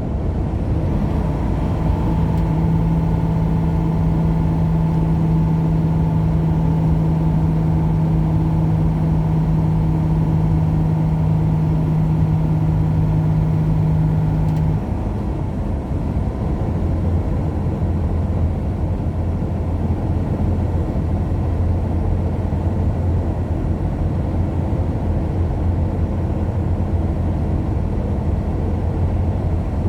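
A car driving on the road, with a steady engine drone and road rumble. About halfway through, the engine's hum drops to a lower pitch and stays there.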